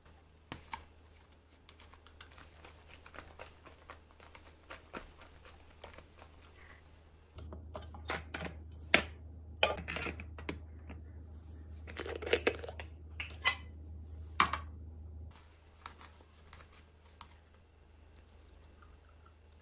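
Kitchen handling sounds: a paper milk carton being folded shut and crinkling, then the glass jars of a Severin yogurt maker clinking and their plastic lids knocking as they are lifted and set down, a run of sharp clicks and knocks loudest in the middle.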